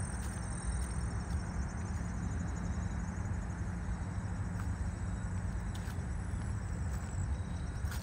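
Footsteps of a person walking along a trail, with insects chirping steadily in the background: a continuous high trill and a fast pulsing chirp.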